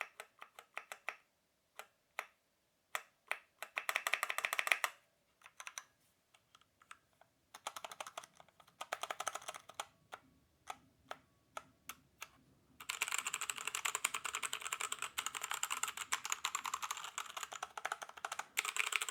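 Keys of a 60% mechanical keyboard with brown switches being pressed. Single presses come at first, with short quick runs about 4 and 8 seconds in. From about 13 seconds in they give way to rapid continuous typing.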